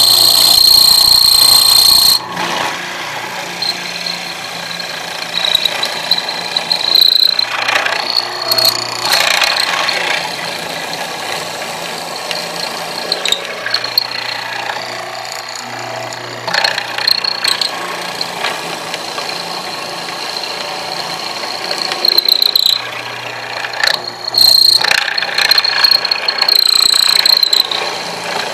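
Benchtop hollow-chisel mortiser running, its square chisel and auger bit plunged into a wooden board to cut a square mortise. A steady high motor whine is broken by louder grinding surges several times as the bit bites into the wood, the loudest in the first two seconds and near the end.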